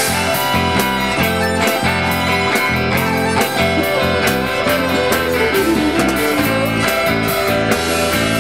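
Live rock band playing an instrumental passage: a bowed violin over a drum kit and guitar, with a steady drum beat. About halfway through, a melody line slides downward.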